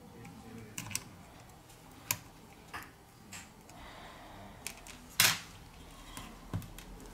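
Scattered small clicks and taps of a plastic pry tool working against a phone's metal mid-frame as the proximity sensor flex is pried up. The loudest is a brief scraping click about five seconds in.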